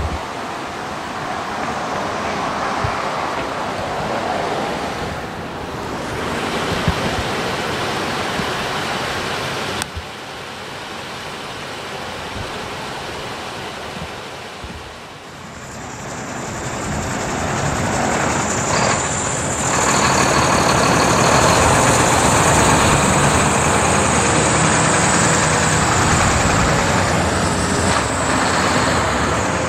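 Road traffic noise: a steady rush of passing vehicles that grows louder in the second half.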